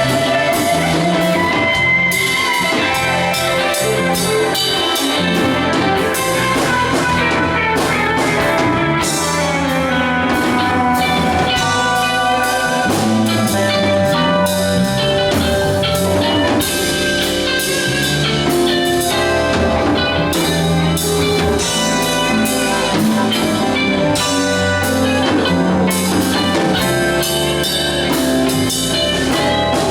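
Live band jamming: electric guitar playing lead lines over a drum kit and bass, in a bluesy style.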